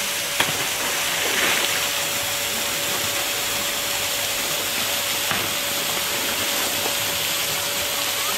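Steady hiss of a high-pressure water jet spraying from a hose or sprinkler and splashing into a pool, with a faint steady tone underneath and a couple of light clicks.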